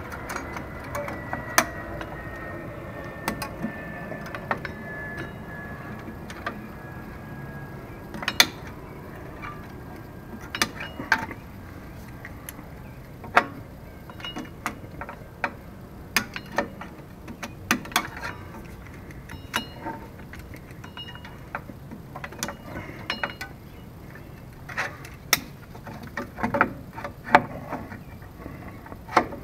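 Irregular metallic clicks and clinks of pliers and drum-brake hardware (shoes, springs, backing plate) being handled while rear brake shoes are fitted on a 1981 K5 Blazer's drum brake. A faint high tone slides slowly down in pitch over the first several seconds.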